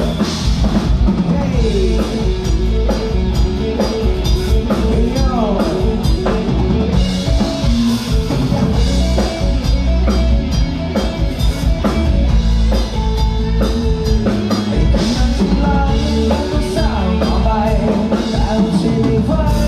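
Live band playing an instrumental passage of a Thai pop-rock song, led by a drum kit with guitar over a steady beat.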